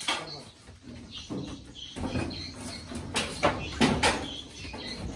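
A few sharp knocks and thuds, the loudest clustered about three to four seconds in, with birds chirping faintly in the background.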